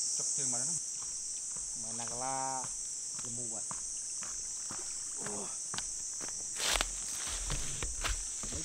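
Steady high-pitched chorus of forest insects, with a few short calls from voices. Near the end, close footsteps and rustling knocks, the loudest sounds, as someone steps off a log onto the bank by the microphone.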